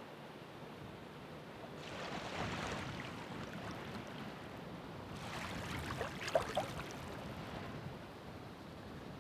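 Ocean waves breaking and washing in: two surges of surf over a steady background wash, the first about two seconds in and the second, with a few sharp splashes, about five seconds in.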